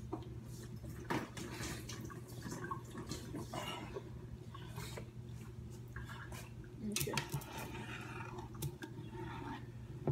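Water boiling in a large aluminium pot, bubbling with many small pops, over a steady low hum. A louder stretch of handling noise comes about seven seconds in as the pot is worked.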